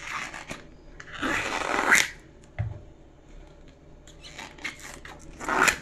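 Stiff bracts of a banana heart (banana blossom) being peeled and torn off by hand: several bursts of crisp rustling and tearing, the longest about a second in, with a soft thump at about two and a half seconds.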